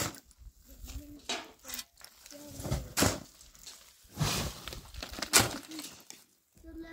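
A long-handled digging tool striking and scraping stony, dusty ground, with about six sharp blows at irregular intervals of roughly a second.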